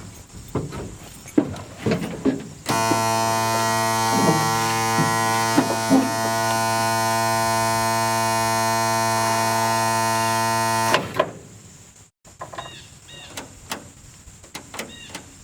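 M35A2 deuce-and-a-half's dash buzzer sounding with the switch on, a loud steady electric buzz that shows the batteries have power. About eleven seconds in it cuts off suddenly as the start button is pressed and all power drops out, which the owner takes for a poor battery contact. Light clicks and knocks are heard before and after it.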